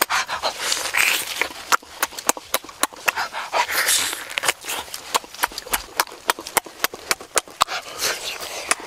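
A man eating roast turkey: wet lip-smacking and chewing, with many sharp clicks, and heavy, hissing breaths through the mouth between bites.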